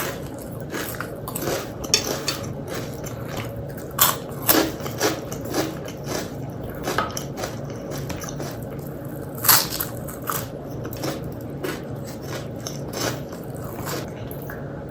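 A person chewing and crunching food close to the microphone, with irregular crisp clicks and wet mouth sounds between slower chewing; the loudest crunches come about 4 seconds and 9½ seconds in.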